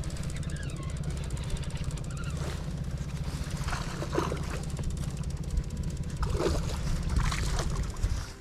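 Baitcasting reel cranked steadily to bring in a hooked smallmouth bass: a fast, even ticking whir over a low rumble. It stops abruptly just before the end.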